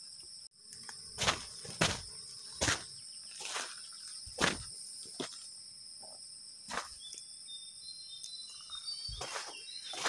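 Footsteps on a dirt path, about one every second, over a steady high drone of insects. A few short bird chirps come near the end.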